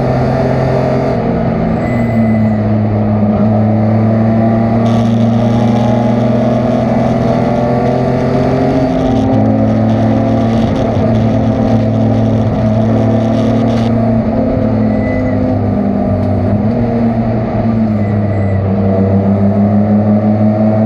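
Race car engine running hard under load, its pitch stepping and sliding as the revs rise and fall through gear changes and corners.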